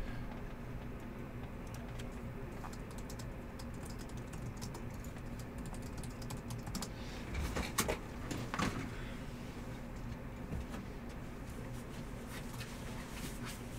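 Typing on a computer keyboard: a run of light, irregular key clicks, with a few louder clicks about eight seconds in.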